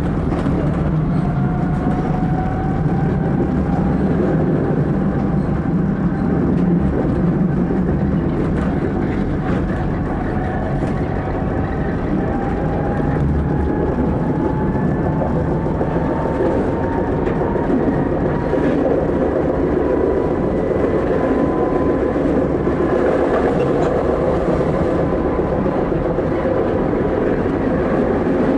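Electric tram running along its rails, heard from the driver's cab: a steady rumble of wheels on track with a thin whine that rises slowly in pitch as the tram gathers speed, then levels off.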